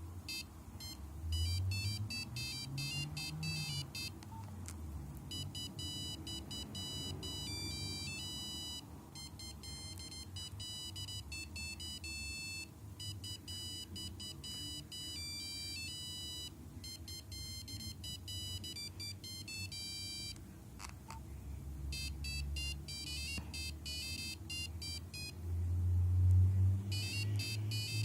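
Nokia 5125 mobile phone playing its beeping ringtone melodies one after another, with short pauses and a click between tunes. A low rumble runs underneath and grows louder near the end.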